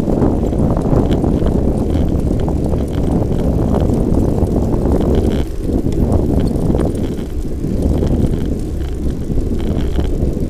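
Wind buffeting the microphone of a bike-mounted action camera while a road bike rolls along at speed, a loud, steady low rumble with the hum of tyres on asphalt.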